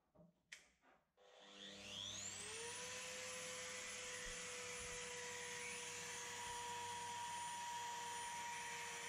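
A couple of light knocks, then a Virutex plunge router's motor spinning up with a rising whine about a second in and running steady at full speed.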